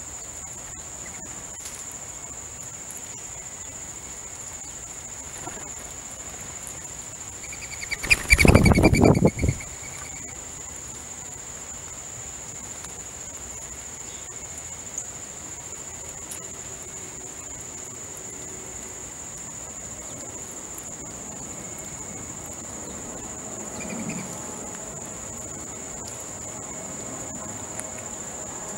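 Insects droning steadily on one high pitch. About eight seconds in, a single loud burst of sound lasting about a second and a half rises over the drone.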